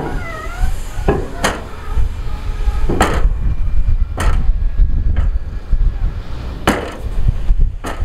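Heavy diesel earthmoving machinery rumbling, with about seven sharp metallic clanks at irregular intervals and a brief wavering squeal near the start.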